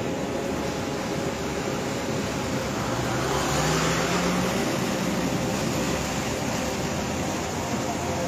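Muddy floodwater rushing across a road, a steady wash of noise, with a vehicle engine revving up about three seconds in as an SUV drives through the current.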